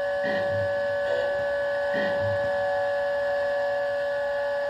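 A steady electronic hum made of several held tones, with a few short sounds about a second apart near the start.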